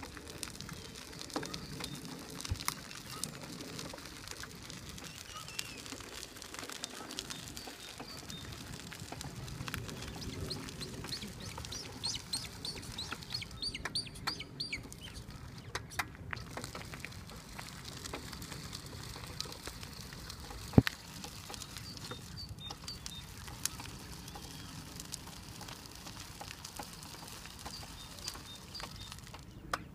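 Birds calling, with a run of quick repeated chirps a little before halfway, over a steady crunch of gravel under the tyres of a powered wheelchair and walking footsteps. A single sharp click stands out about two-thirds through.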